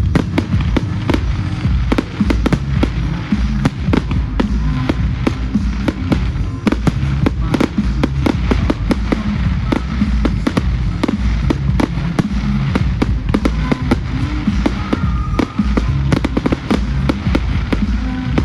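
Fireworks display in full flow: a dense, continuous run of bangs and crackles, several a second, with music playing underneath.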